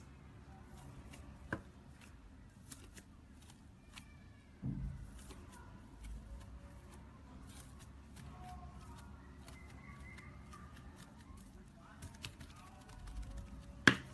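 Slime under a sheet of thin metallic foil being pressed and scored with a blade: soft foil crinkling and sticky crackles with many small scattered clicks, a duller knock about a third of the way in and a sharp, loud click near the end.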